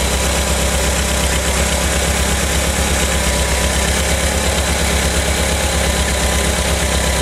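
1985 VW Vanagon's 1.9-litre water-cooled flat-four (wbx) idling steadily, with the vacuum advance disconnected and plugged and the ignition timing set on the center mark.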